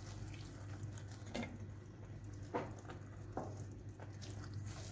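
Wooden spoon stirring shrimp in a cream sauce in an enamel pan: soft, wet stirring with a few light scrapes, over a faint steady low hum.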